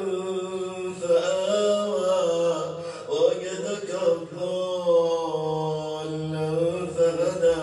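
A man's voice reciting the Quran in a slow, melodic chant, holding long drawn-out notes that bend gently in pitch.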